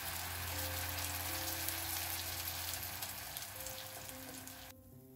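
A slice of white bread frying in melted butter in a nonstick pan, sizzling steadily, cutting off suddenly near the end. Soft background music plays underneath.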